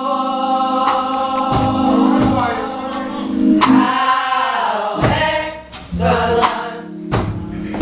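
Gospel music: a choir singing over a band, with several drum hits.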